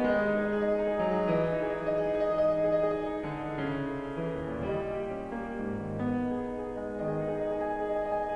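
Piano music, notes changing about once a second.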